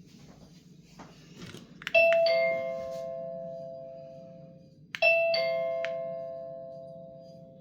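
Lexman D02 wireless doorchime sounding a two-note ding-dong twice, about three seconds apart. Each time the higher note is struck first and a lower one follows a moment later, both ringing out slowly.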